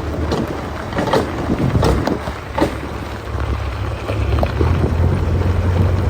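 Diesel engine running steadily under a string of sharp knocks and clanks, most of them in the first three seconds, as earth-moving work goes on.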